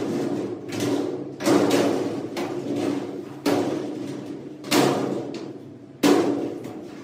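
A thin sheet-steel locker body being knocked and banged on by hand during assembly: six sharp knocks at uneven spacing, each ringing briefly.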